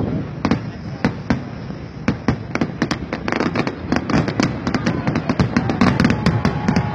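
Fireworks display finale: rapid bangs and crackling that grow denser after about three seconds into a near-continuous barrage, with a faint, slightly falling whistle near the end.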